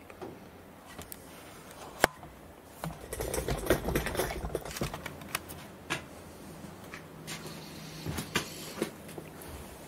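Scattered small clicks and taps of metal tools and parts being handled around a metal lathe, with one sharper click about two seconds in. In the middle there is a few seconds of rustling handling noise as the camera is moved.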